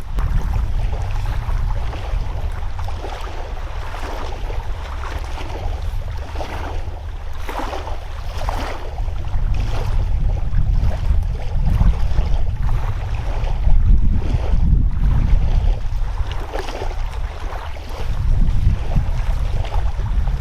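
Wind buffeting the microphone: a heavy, uneven low rumble with irregular rushing gusts swelling and fading.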